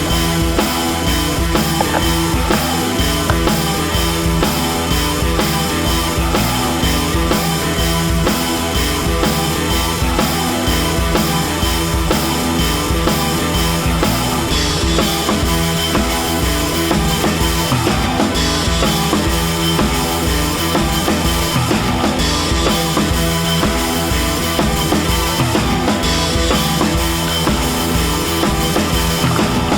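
Rock background music with a steady drum-kit beat.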